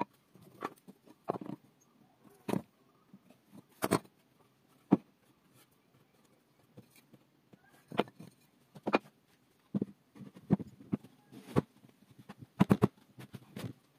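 Wooden boards and blocks being set down and shifted on a wooden workbench: scattered knocks and taps with quiet gaps between, and a quick run of several knocks near the end.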